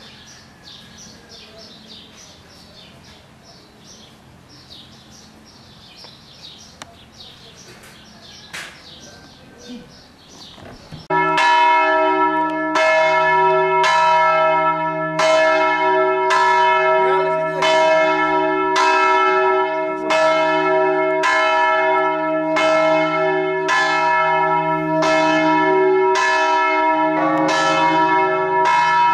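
Faint birds chirping, then about eleven seconds in church bells suddenly start ringing loudly in a steady rhythm of about one stroke a second, each stroke ringing on; the pattern of notes shifts near the end.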